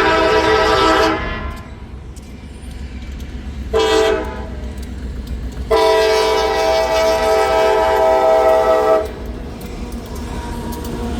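Locomotive air horn sounding a chord: a long blast ending about a second in, a short blast, then a long blast of about three seconds. This is the tail of the standard long-long-short-long grade crossing signal, with the low rumble of the train running underneath.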